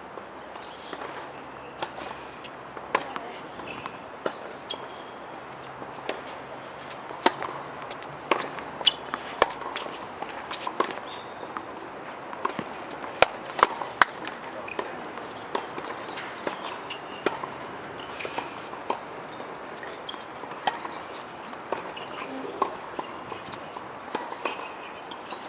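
Tennis balls struck by rackets and bouncing on an outdoor hard court during play: a scattered series of sharp pops, busiest in the middle of the stretch.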